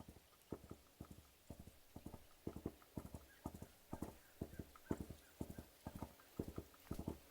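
A horse galloping, its hooves striking in a steady rolling rhythm of three or four quick beats, about two strides a second.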